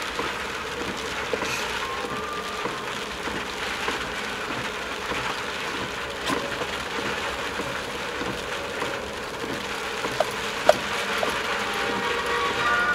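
Inside a moving car in the rain: tyres hissing on a wet road and rain pattering on the body and windscreen, with one sharp click near the end.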